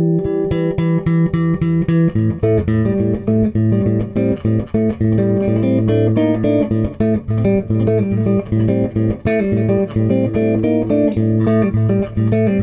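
Improvised guitar music: quick picked notes, with a low bass line coming in about two seconds in.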